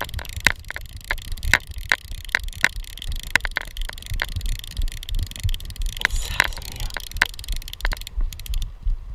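Metal fishing forceps (pincers) bouncing against a GoPro's plastic housing: irregular sharp clicks, roughly two a second with a short pause midway, over a low rumble of the camera being jostled as the angler moves.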